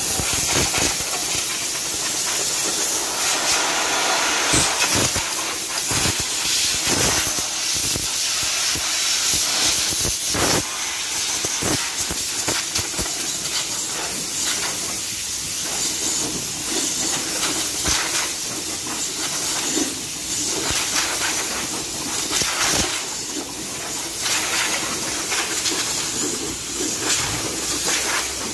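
Compressed air blown from an air hose over a car's engine bay to clean it: a loud hiss that swells and fades in uneven surges.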